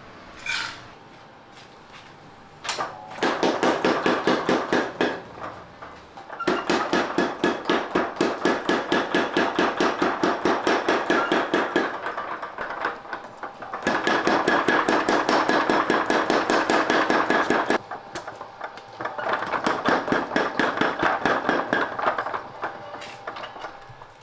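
Fast, regular hammer blows on a red-hot steel knife blank against the anvil, about four a second with a metallic ring. They come in runs of several seconds with short pauses between, as the blank is forged into a knife shape.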